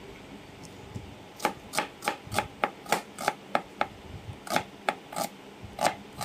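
Kitchen knife slicing a red onion on a plastic cutting board: a quiet start, then a steady run of sharp chops at about three a second from about a second and a half in, with a brief lull near the middle.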